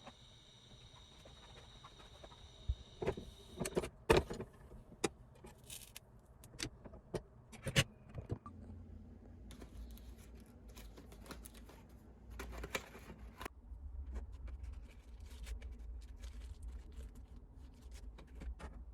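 A steady high tone that stops after about three and a half seconds, then a run of sharp clicks and clinks of small hard objects being handled, followed by a steady low hum with a few faint ticks.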